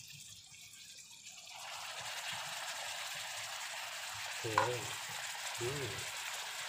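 Beef sizzling in a hot metal wok, the steady frying hiss swelling up about a second and a half in as a spoonful of Worcestershire sauce goes into the pan and is stirred with a metal spoon. A small clink of the spoon on the pan comes partway through.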